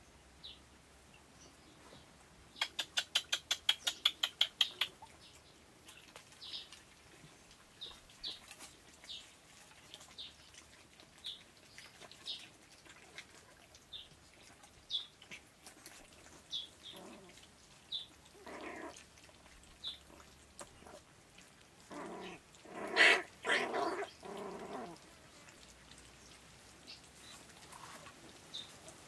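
Young puppies whining and yelping: a few whimpers past the middle, then a louder run of yelps a few seconds later. High bird chirps come every second or so, with a rapid clicking trill a few seconds in.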